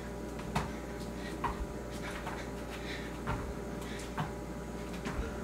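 Bare feet landing on a yoga mat during side-to-side skater jumps: soft thumps about once a second, over a steady low hum.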